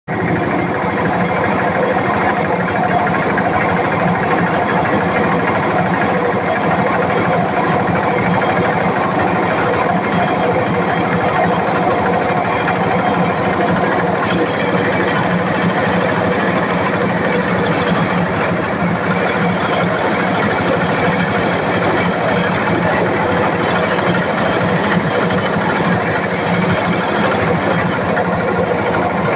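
A vehicle engine running steadily at an even speed, with a constant hum.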